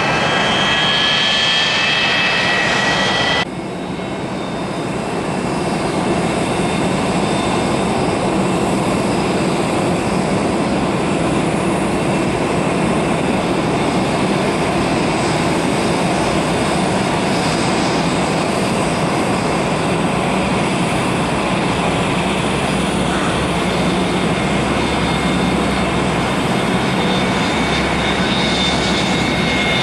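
Boeing 727 freighter's Pratt & Whitney JT8D turbofan engines running loud: a high whine with a slowly rising tone in the first few seconds that cuts off suddenly, then a steady, loud rushing jet noise.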